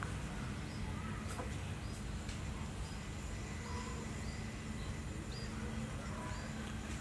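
Small birds chirping: short, high, hooked chirps about once a second, with a few lower short calls, over a steady low rumble of outdoor background noise.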